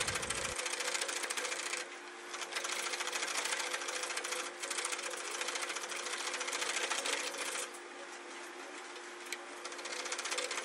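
Flat chisel cutting and smoothing a spinning wooden workpiece on a foot-powered spring pole lathe, a fast rattling hiss of the cut. It eases off briefly a few times, about two seconds in, again past four seconds, and for over a second near the end.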